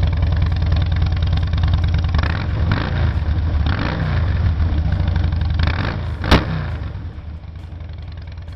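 A 2007 Harley-Davidson Fat Boy's Twin Cam 96 V-twin idling through a Vance & Hines exhaust, with several quick throttle blips in the middle. A single sharp pop comes about six seconds in, and the engine runs quieter near the end.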